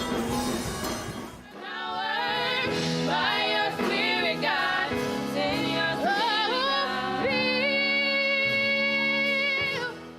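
Live gospel music with singing: a band plays, and from about a second and a half in voices sing over it. They end on a long held note near the end.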